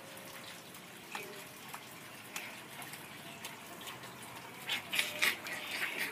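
Steady hiss of rainwater running and dripping onto wet concrete and puddles, with a few louder splashes about five seconds in.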